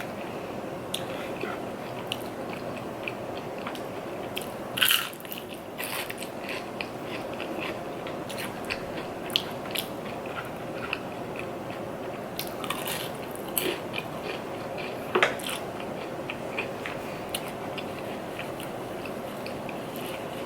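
A person eating Chinese food close to the microphone: chewing and biting with scattered crunches and mouth clicks, the loudest bites about five and fifteen seconds in.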